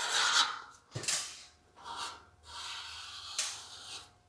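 Half-inch tape being pulled off the roll and pressed along the edge of a sheet-metal panel: several short, scratchy pulls, roughly one a second.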